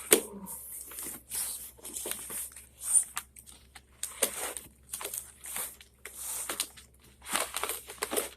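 Packaging being handled while a computer box is unpacked: irregular rustling and crinkling with short clicks and scrapes, in uneven bursts.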